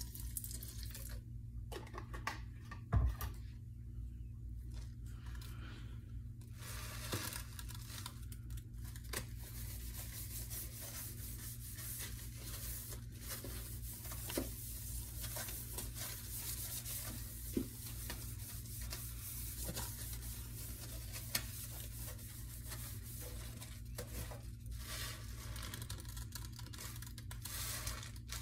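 Sponge scrubbing a stainless steel sink coated in scouring powder and foaming cleaner: a steady scrubbing, sparse for the first few seconds, with a few sharp knocks along the way.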